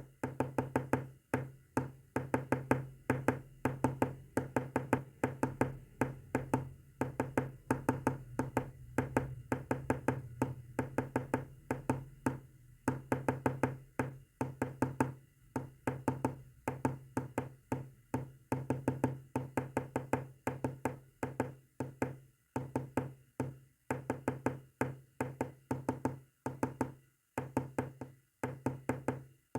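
Morse code sent as rapid runs of short, clicky, low-pitched buzzing pulses, several a second, grouped into characters with brief gaps between them.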